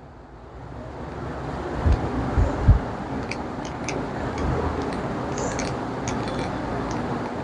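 A duster wiping marker off a whiteboard: a steady rubbing, with a few dull knocks a little after two seconds in.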